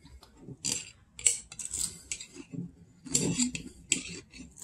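A table knife scraping and clinking against the inside of a glass jar as strawberry jam is scooped out, in several short scrapes.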